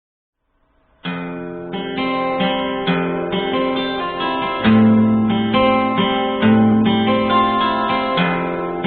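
Acoustic guitar music with chords changing every second or so, starting about a second in after a short silence.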